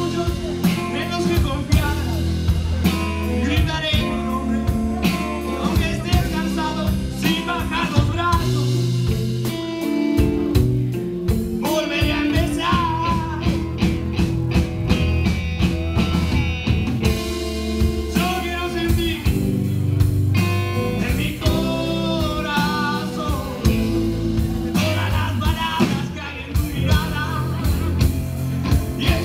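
Live blues-rock band playing amplified: electric guitars over electric bass and drum kit.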